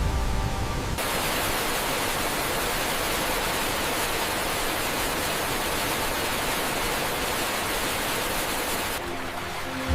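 A steady, even rushing hiss that starts abruptly about a second in and cuts off just before the end. Background music trails off at the start and comes back near the end.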